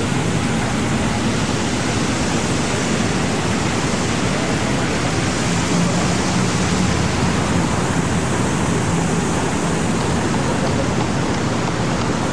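Steady rushing noise of water spraying from a large plaza fountain, mixed with city traffic.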